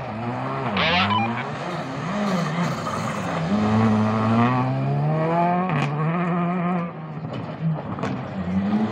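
Rally car engine revving hard and dropping back again and again as the car is thrown round a tight coned course, its pitch rising with each acceleration and falling at each lift-off or gear change. There is a brief high screech about a second in.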